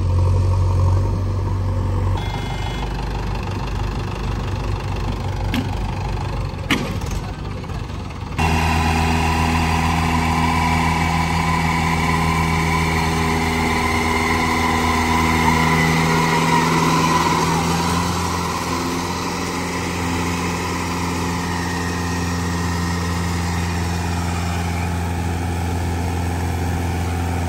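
Diesel engines of a farm tractor and a backhoe loader running under load. The sound changes abruptly about eight seconds in to a louder, steadier engine note that rises and falls a little in pitch.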